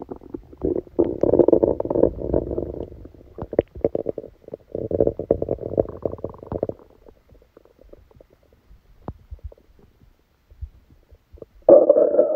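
Human stomach gurgling and rumbling in crackly bursts, with a stretch of faint scattered pops before a loud rumble near the end: the bowel sounds of a stomachache after a large dinner.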